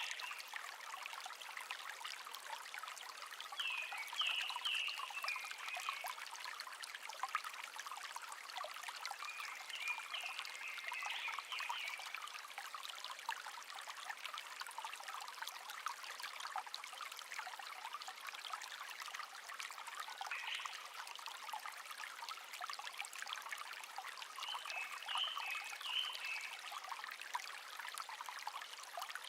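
A shallow stream babbling steadily, with a songbird singing short phrases of a few high chirping notes that recur every five to ten seconds.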